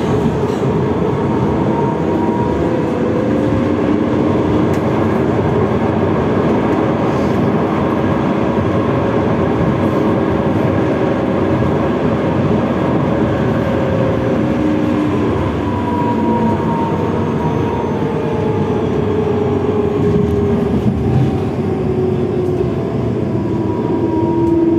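Bombardier 4200-series tram running, heard from inside the car as a steady rumble and rush of wheels on rail. Whining motor tones slide slowly up and down in pitch as it speeds up and slows.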